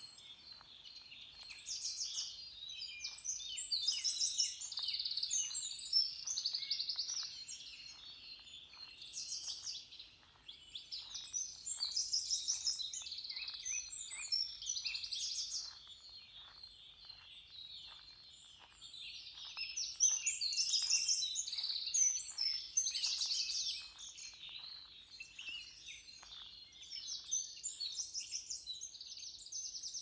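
A chorus of small songbirds, many short high chirps and rapid trills overlapping without pause, swelling louder and fading back every few seconds.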